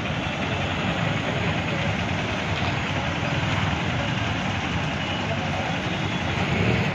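Steady traffic noise from the engines of buses, a truck, auto-rickshaws and motorbikes idling and crawling in a queue of stalled traffic.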